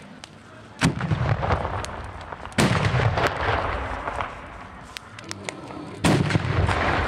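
Carbide cannons, oil drums charged with calcium carbide and water and set off by lighting the acetylene, firing three loud bangs: about a second in, about two and a half seconds in, and near the end. Each bang is followed by a long fading echo.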